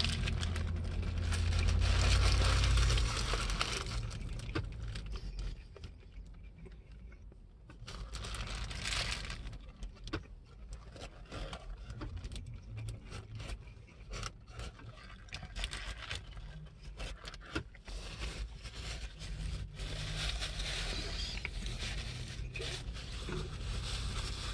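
A person biting into and chewing a burger close to the microphone, with the paper wrapper rustling and crinkling in the hand. The rustling is loudest in the first few seconds, then gives way to quieter chewing with small clicks and crackles.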